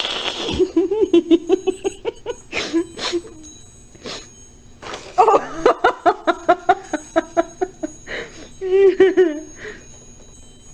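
A baby laughing: two long bouts of quick, repeated high-pitched chuckles, then a shorter giggle near the end.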